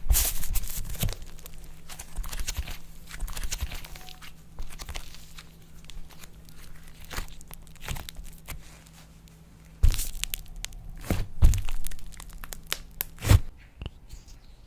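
Slime being squeezed and stretched by hand: sticky crackles and small air-bubble pops, with a few louder snaps near the end.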